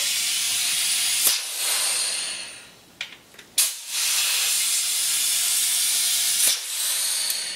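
Compressed shop air hissing loudly through a leak-down tester into cylinder four of a turbo Mazda Miata engine, in two long blasts, each starting with a sharp click. The air is leaking past into the cooling system and pushing coolant out of the radiator, the sign of a blown head gasket or a cracked cylinder head.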